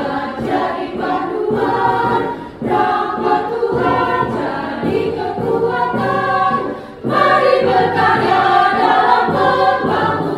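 Women's choir singing, with brief breaks between phrases about two and a half and seven seconds in.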